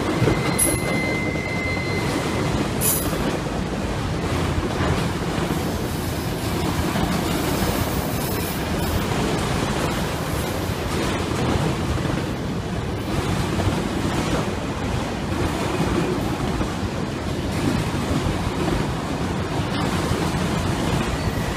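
Train passing, its rail cars rolling by with a steady rumble, and a brief high squeal in the first two seconds.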